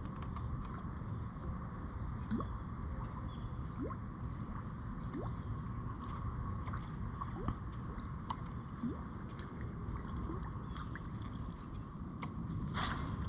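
Water gurgling and sloshing around a kayak's hull over a steady low rumble. Faint short rising squeaks come about every second and a half, and there is a brief louder rush near the end.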